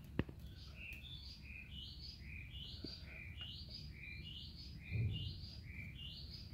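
A bird calling steadily, a regular run of short chirps that rise and fall, two or three a second, alternating between a higher and a lower note. There is a faint click just after the start and a soft low thump about five seconds in.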